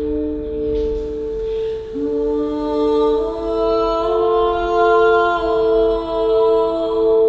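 A singing bowl rings with a steady, slowly pulsing tone. About two seconds in, a woman's voice joins, singing long held notes over it that step up in pitch once.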